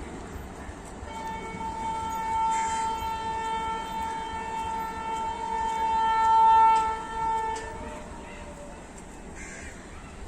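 WAP-7 electric locomotive horn sounding one long steady blast of about seven seconds, growing louder shortly before it cuts off, over the running noise of the train.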